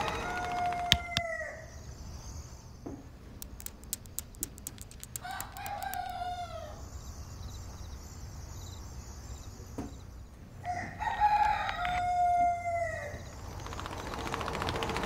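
A rooster crowing three times, about five seconds apart, each crow a long call that drops in pitch at its end, the last one the longest. Faint high twittering and a few light ticks sound between the crows.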